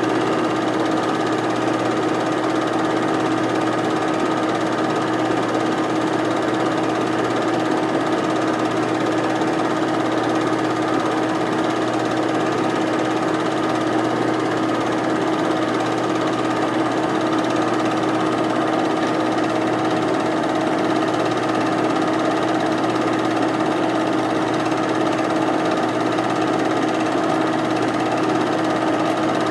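8mm film projector running steadily: a constant motor hum with a fast, even mechanical whir from the film transport.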